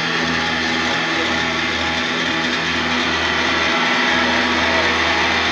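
Live electronic noise music played from effects pedals and a mixer through a club PA: a dense, harsh wall of noise over a steady low drone, growing slightly louder near the end.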